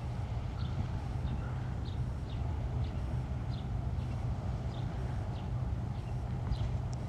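Short, high, falling chirps repeating about twice a second, most likely a small bird calling, over a steady low rumble of wind or distant traffic.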